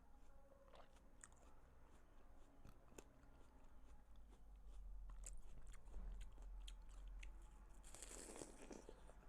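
Faint chewing of watermelon flesh: soft crunches and small wet clicks, with a louder crunchy bite about eight seconds in.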